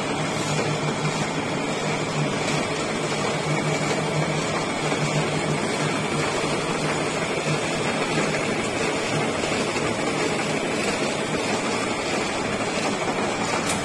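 Old metal-turning lathe running under power, its chuck spinning a threaded steel workpiece: a steady mechanical hum with a faint high tone. A short sharp click comes at the very end.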